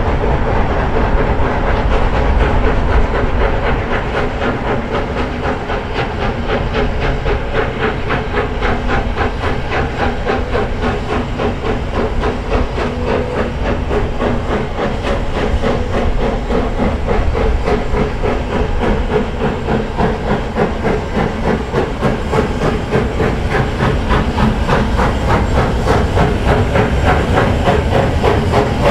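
Steam locomotive BLJ 5 Thor hauling its train shortly after leaving a station: a steady, rapid run of exhaust beats over hissing steam.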